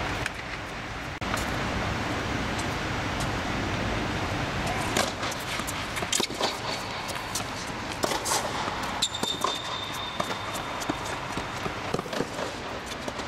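Tennis rally on an indoor hard court: sharp pops of racket strikes and ball bounces from about five seconds in, with quick footsteps and a brief shoe squeak around nine seconds in, over a steady background rush.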